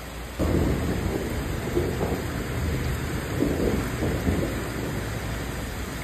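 Thunder breaking suddenly about half a second in and rolling on in a deep, swelling rumble, over the steady hiss of heavy rain.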